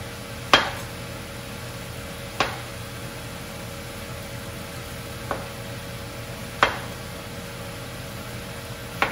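Kitchen knife cutting the skin off a sweet potato, its blade knocking sharply on the cutting board five times at uneven intervals, over the steady sizzle of vegetables sautéing in a pan.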